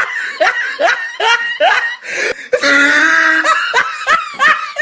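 A person laughing in a quick run of short 'ha' syllables, several of them sliding up in pitch, with one longer drawn-out laugh in the middle.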